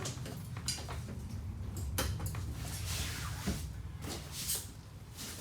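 Trifold sleeper sofa being folded back into a sofa: several knocks and thumps of the frame and cushions, with rustling of the upholstery.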